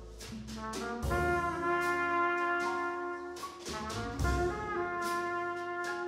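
Small jazz ensemble of two trumpets and a saxophone playing long held chords together over drum-kit cymbals. The horns swell in louder about a second in and again past the four-second mark.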